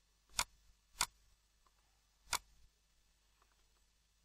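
Three short, sharp single clicks from the computer while folders are being opened in Windows Explorer: the first about half a second in, the next half a second later, the last past the two-second mark.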